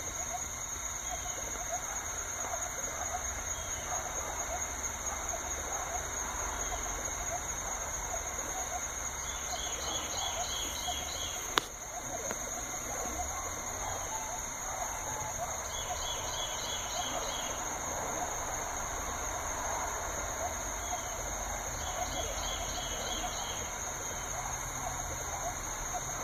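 Diode laser engraver running a burn, its stepper motors humming and whirring as the turntable and head move, over a steady high-pitched whine. Short pulsed chirps repeat every few seconds in the background, and a single sharp click comes about halfway through.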